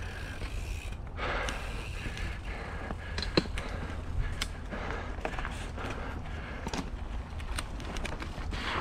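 Mountain bike riding rough singletrack: scattered clicks, rattles and knocks from the bike over the trail, with a sharper knock about three and a half seconds in, over a steady low rumble.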